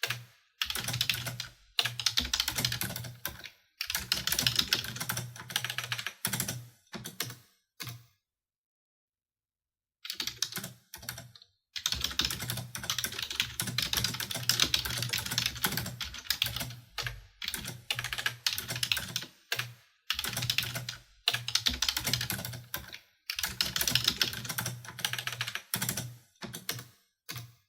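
Fast typing on a computer keyboard, a rapid patter of key clicks in runs of one to several seconds broken by short pauses, with a silent break of about two seconds some eight seconds in.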